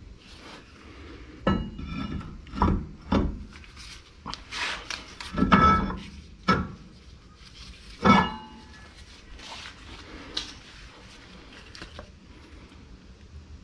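A string of irregular metal clanks and knocks, several ringing briefly, from tools and brake parts being handled, mostly in the first two-thirds.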